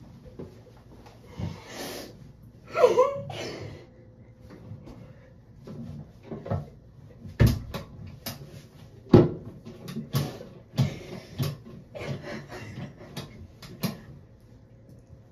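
A string of irregular knocks and thumps, with a short sliding pitched sound about three seconds in.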